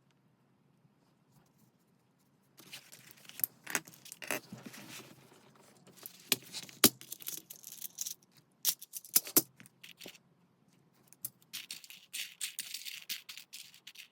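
Paper and craft materials being handled and rustled, with small sharp taps and clicks, in two spells split by a short pause about ten seconds in.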